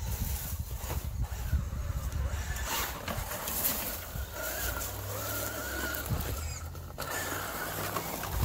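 Traxxas UDR radio-controlled truck driving on dirt: its electric motor whines, rising and falling with the throttle, over a steady low rumble.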